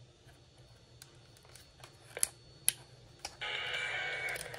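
Small clicks of a plastic Eton Microlink FR170 radio being handled and its controls worked, then about three and a half seconds in, steady static with faint tones comes on suddenly from the radio's speaker.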